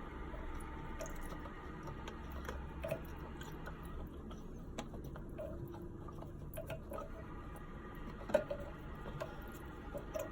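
Scattered light clicks and taps as a loosened toilet inlet valve is worked free by hand, with one sharper click about eight seconds in.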